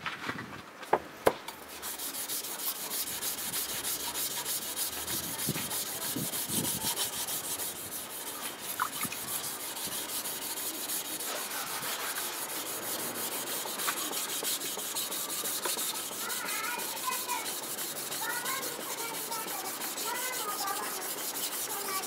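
A Tosa-style kitchen knife blade being stroked back and forth on a wet whetstone: a steady, gritty rubbing of steel on stone that starts about two seconds in. It follows a couple of sharp clicks at the start, which are the loudest sounds.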